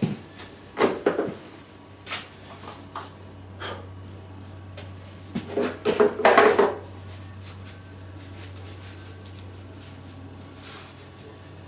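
Clunks, knocks and rattles of welding gear being picked up and handled on a steel workbench, with the loudest cluster about six seconds in, over a low steady hum.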